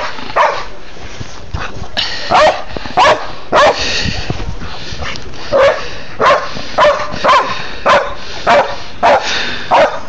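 Pit bull barking repeatedly in short, loud barks, about a dozen of them, coming every half second to a second with a gap in the first two seconds.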